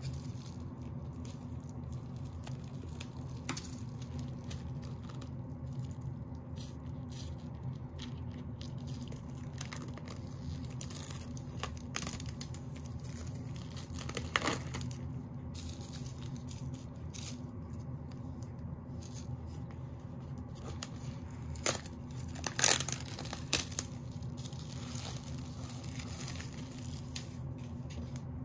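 Plastic shrink wrap being torn and peeled off a boxed album, crinkling in short crackles, over a steady low hum. The loudest crackles come about three-quarters of the way through.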